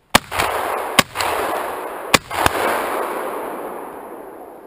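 A quick series of shotgun shots, about a second apart, fired at a passing flock of pigeons. Each sharp crack is followed by a long echo that rolls on and fades slowly.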